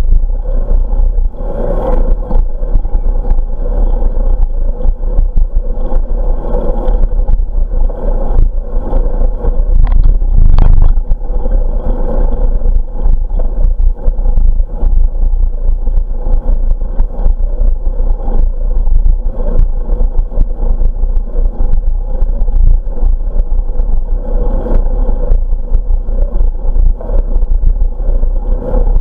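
Wind rumbling on the microphone of a camera riding on a moving bicycle, mixed with tyre noise on smooth asphalt and small rattling knocks. A louder gust about ten seconds in.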